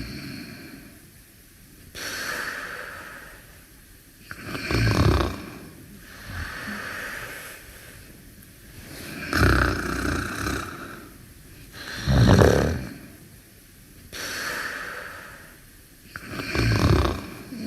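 Slow, regular snoring of a sleeper: four loud snores roughly every three to four seconds, with softer, breathy breaths in between.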